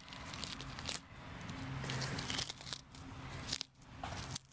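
Crackling, tearing rustle of a zucchini (courgette) flower's petals being peeled back by hand right at the microphone, with a few sharp clicks.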